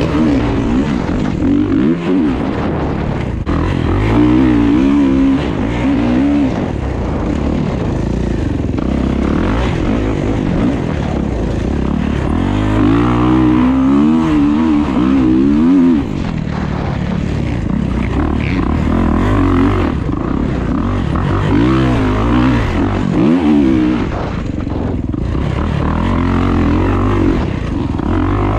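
Kawasaki dirt bike engine heard from on board, revving up and down repeatedly as the throttle is worked along a dirt trail.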